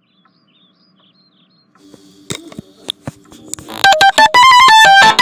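A few sharp clicks, then about four seconds in a Siemens mobile phone starts playing a loud electronic ringtone melody of quick stepped notes.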